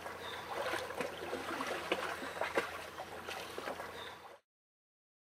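Seawater sloshing and splashing around a person wading through it, with a few sharper splashes; the sound cuts off abruptly near the end.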